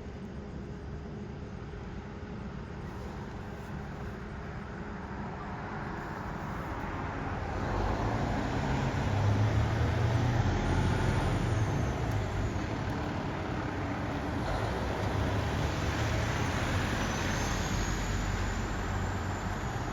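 Fire department ladder truck driving past with traffic noise. The sound builds over a few seconds to a low engine rumble that peaks about halfway through and stays fairly loud to the end.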